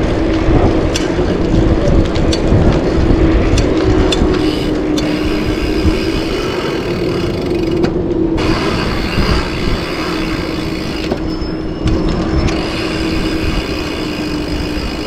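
BMX bike rolling fast downhill on tarmac, with tyre roar and wind rushing over the camera microphone. A steady hum runs under the noise, with a few sharp clicks in the first few seconds.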